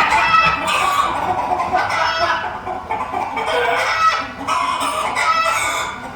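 Hen-like clucking, many short calls running on without a break.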